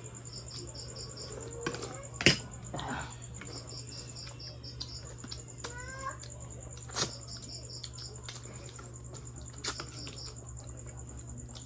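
Crickets chirping at night: a steady high trill with short repeated pulse groups over it, and a low steady hum beneath. A few sharp clicks of metal spoons against plates break in, the loudest about two seconds in, and a short wavering chirp sounds near the middle.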